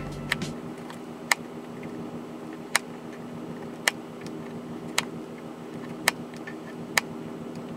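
Sharp single ticks at an even pace, about one a second, over a steady low hum.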